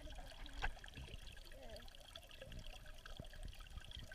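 Pond water heard through a camera held underwater: a faint, muffled wash with small wavering gurgles, and one sharp knock about half a second in.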